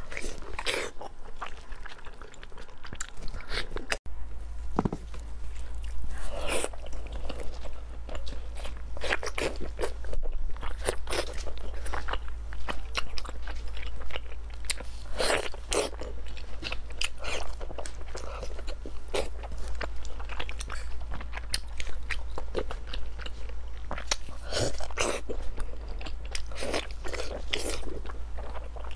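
Close-miked eating sounds: a person biting into and chewing soft braised pork belly, with many short wet smacks and clicks of the mouth. A steady low hum sits underneath from about four seconds in.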